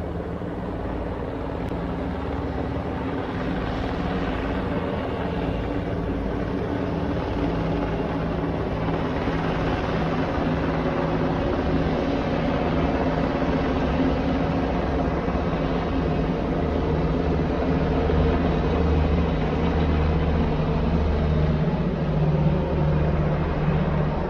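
Steady droning engine noise with a low, even hum, growing slowly louder.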